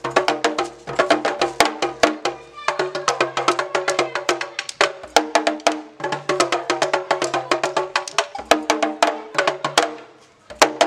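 Brass band's percussion groove: hand drums and sharp wooden clicks in a fast, steady pattern with pitched parts underneath, in a Beninese folk-song arrangement. Near the end it drops out briefly, then the trumpets, trombone and tuba come in loudly.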